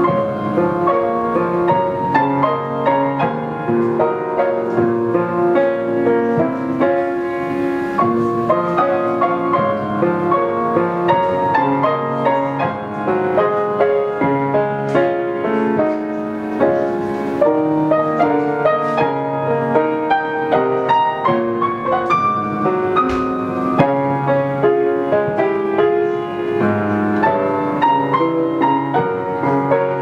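A 19th-century Schröder grand piano played solo: a continuous piece of melody over chords, notes following one another without a break.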